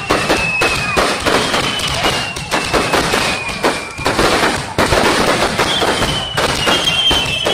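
Aerial firework shells bursting in a dense barrage, the bangs following one another every fraction of a second. Several high tones slide slowly down over the top.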